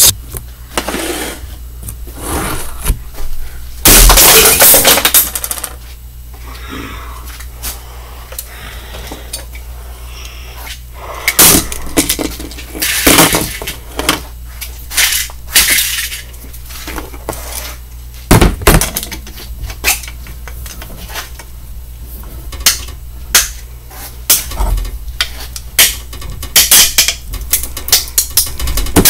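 Broken plastic alarm clock being pulled apart on a workbench: plastic cracking and small parts clattering and clinking in irregular knocks, with a loud stretch of breaking about four seconds in.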